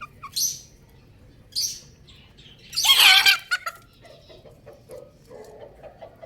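Chicks chirping in short, separate bursts, the loudest and longest about three seconds in, followed by softer, lower calls.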